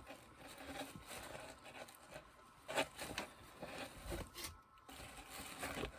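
Faint rustling and scattered light handling noises of a cotton hoodie being unfolded and held up.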